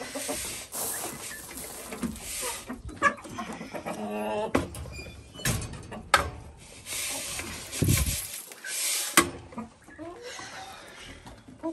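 Hens clucking around a feed pan while grain is poured from a bag into a wire-mesh feeder, hissing and rattling, with scattered knocks and clicks.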